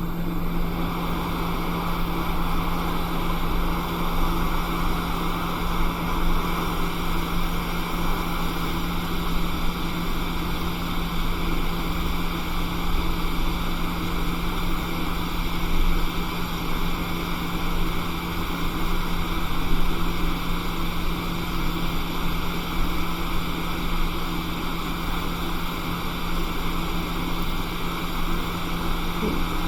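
Hot air rework station blowing steadily: an even airy hiss over a low hum, heating an iPhone 6S Tristar charging chip to lift it off the logic board.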